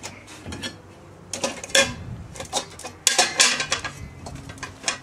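Metal cooking plates for a Cobb grill clattering and scraping against the grill's stainless steel bowl as they are stacked inside it, in two main bursts about one and a half and three seconds in.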